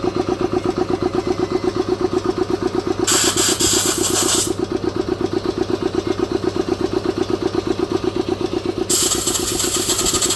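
Heavy-equipment diesel engine running with a fast, even pulse, and a hiss joining in twice, about three seconds in and again near the end.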